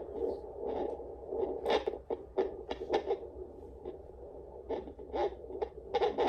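Home fetal Doppler's speaker giving a steady whooshing hiss of womb noises, broken by irregular crackles and scrapes as the probe is slid over the oiled belly. It is still searching: no clear fetal heartbeat yet.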